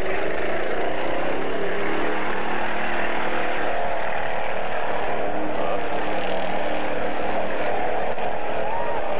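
Off-road vehicle engine running, its pitch wavering up and down as it is revved.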